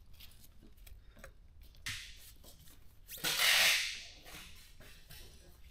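Light clicks and scrapes of a motorcycle front-fork cap being unscrewed and worked off the fork tube, with one short, loud rasping hiss a little past three seconds in.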